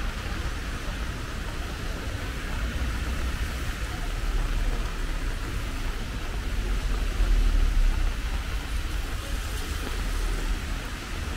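Street ambience of road traffic on a wet street in light rain: a steady low rumble with tyre and rain hiss, swelling as a vehicle passes about seven seconds in.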